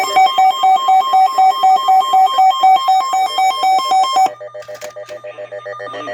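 Emergency alert tone before a severe thunderstorm warning: a loud electronic tone pulsing about four times a second. It drops in level and shifts lower about four seconds in.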